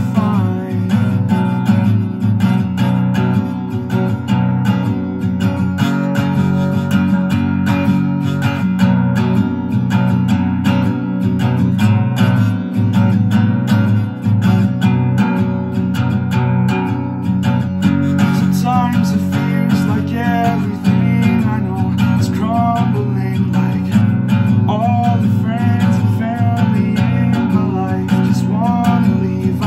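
Acoustic guitar with a capo, strummed steadily as a song accompaniment. About two-thirds of the way through, a voice joins in with wordless singing over the strumming.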